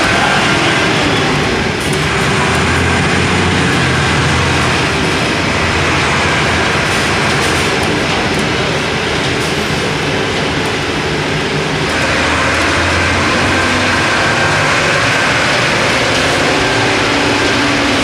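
Diesel engine of a Mercedes-Benz OF 1318 city bus running steadily under way. Its note eases about two seconds in and picks up again around twelve seconds in.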